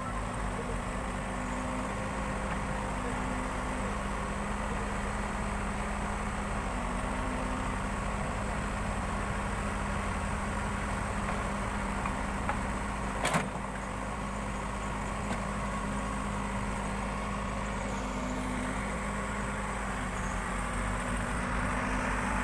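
Backhoe loader's engine running steadily at a low, even speed, with one sharp click about 13 seconds in.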